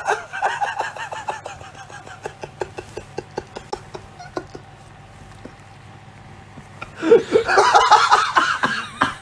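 A woman laughing hard. Her laugh trails off into a long run of short breathy pulses that fade away, then a second loud fit of laughter breaks out about seven seconds in.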